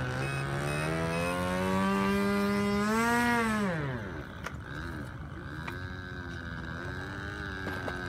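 Piston engine of a radio-controlled model plane flying past: its pitch climbs for about three seconds, then drops steeply as the plane passes, and it keeps running fainter and farther off with a wavering pitch.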